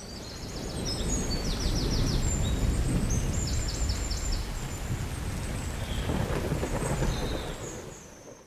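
Jungle ambience under an animated logo: a long, deep rumble like distant thunder with hiss over it, while high chirping calls come in quick runs of four or five, twice near the start. It all fades out near the end.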